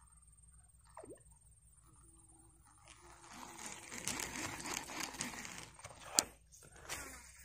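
Crackly rustling and handling noise with small clicks as an angler handles and swings a baitcasting rod and reel through tall grass, with a single sharp click about six seconds in and a short rustle near the end.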